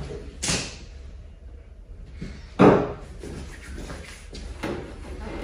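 Two sudden knocks: a short sharp one about half a second in and a louder bang about two and a half seconds in.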